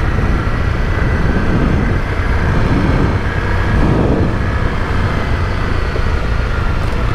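Honda CRF250L single-cylinder dual-sport motorcycle engine running at a steady road speed, mixed with wind rushing over the bike-mounted camera's microphone.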